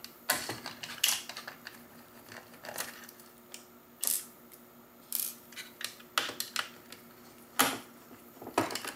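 Scattered small clicks and clinks of a screwdriver and screws as the screws holding a Roomba's bumper sensors are taken out and the plastic and metal parts are handled.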